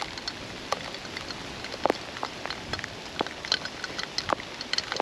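Rain falling steadily in a storm, a constant hiss with many irregular sharp ticks of drops and hail pellets striking nearby surfaces.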